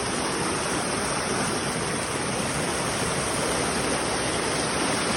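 Small waterfall on a creek, water pouring and splashing in a steady, even rush.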